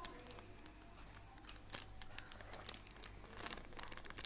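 Faint, scattered rustling and light clicks as baking powder is added to ragi flour in a steel mesh sieve.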